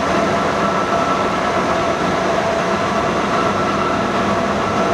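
Leblond NK engine lathe running steadily: an even machine noise with a constant whine in it.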